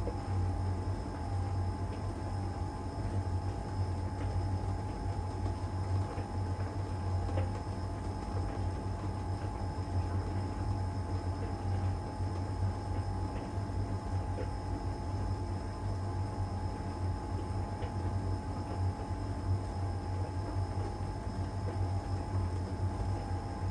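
LG heat pump tumble dryer running mid-cycle in its Iron Dry stage: a steady low hum with a constant whine above it and a few faint ticks.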